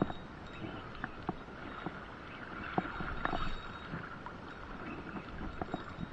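Water slapping and sloshing against the hull of a small boat, with scattered sharp clicks and knocks throughout.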